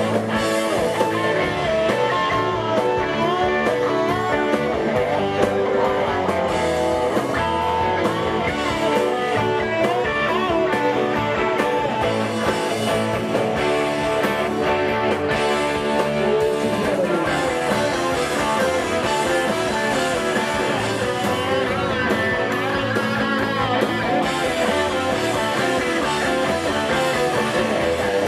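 Live Southern rock band playing an instrumental passage without vocals: several electric guitars over bass and drums.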